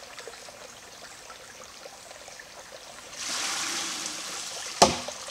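Creek water trickling. About three seconds in, the water-powered hammer's log tips and its trough end pours out its water in a gush. Near the end the hammer end of the log drops back onto its stone with one sharp knock.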